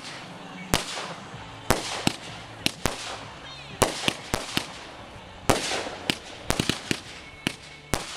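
Aerial fireworks going off: a quick, irregular string of sharp bangs, well over a dozen in eight seconds, several bunched close together in the last third, some trailing off in a short hiss.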